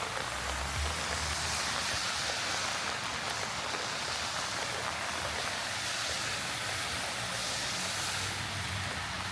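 Heavy rain falling steadily on the street, a dense even hiss that swells twice. A low rumble of traffic on the wet road comes in near the start and again at the end.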